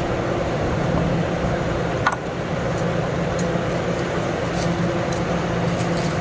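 Steady low mechanical hum over a continuous rushing street noise at a grill stall. There is a sharp click about two seconds in, and light crinkles and ticks near the end as grilled sausages are slipped into a plastic bag.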